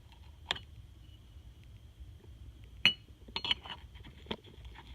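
Small metal turbocharger parts clinking and tapping against each other a few times as they are handled and fitted, the loudest knock about three seconds in and a quick cluster just after.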